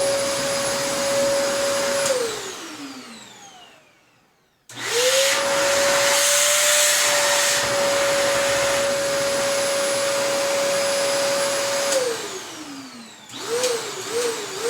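Hoover PortaPower canister vacuum switched on, its motor running with a steady high whine, then switched off and winding down. About five seconds in it is switched on again, spins up, runs steadily for about seven seconds, and is switched off and winds down once more.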